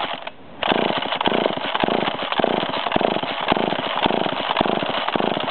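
McCulloch Eager Beaver two-stroke chainsaw engine catching about half a second in and running unevenly and roughly, a saw that won't stay running.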